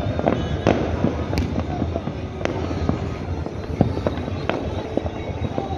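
Fireworks going off: sharp bangs and pops at irregular intervals, several close together at times, over a steady background of noise.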